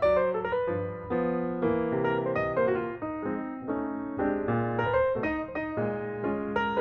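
Piano music: a steady run of notes and chords, each struck and then fading, several to the second.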